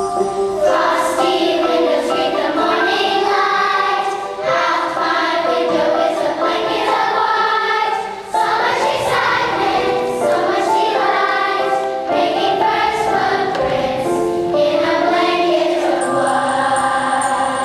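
A children's choir singing a song in unison phrases, with instrumental accompaniment.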